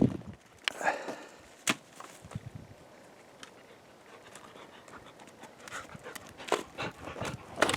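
A dog panting, with a few sharp clicks and knocks scattered through it and a quieter stretch in the middle.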